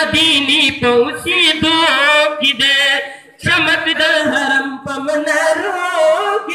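Students' voices singing a naat, a devotional Islamic praise poem, unaccompanied, in a melodic style with wavering ornaments on the held notes. The singing breaks off briefly about halfway and then resumes.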